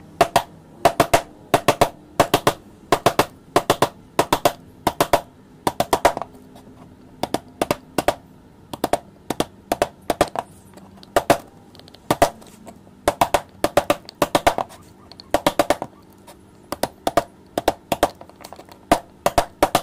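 Hammer striking a steel chisel as it chops into a wooden plane body, clearing the waste between drilled holes to cut the blade slot. Sharp knocks come in quick groups of two or three with short pauses between.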